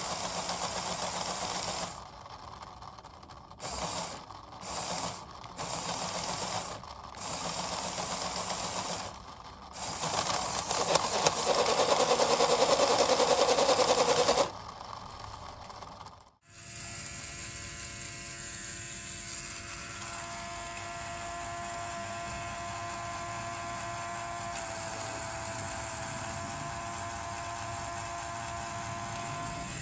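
LEGO Technic gearbox driven by an electric motor, plastic gears and axles whirring; the drive starts and stops several times, runs loudest for a few seconds, then cuts out. After a break, a small LEGO gearbox turned by a LEGO electric motor runs steadily with a thin gear whine.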